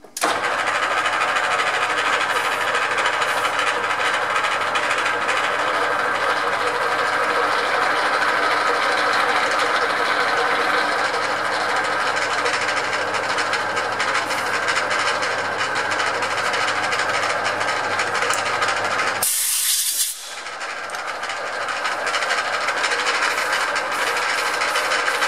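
Metal lathe running at its slowest speed while a half-inch machine reamer is hand-fed into the bore of a steel shaft held in the three-jaw chuck, bringing the hole to size. Steady running noise; about 19 seconds in a brief sharp high hiss cuts in, after which the running sound dips and builds back up.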